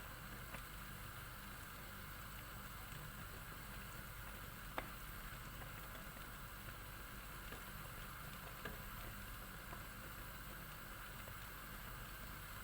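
Strawberry jam simmering in a pot: a faint, steady bubbling hiss, with one sharp click about five seconds in.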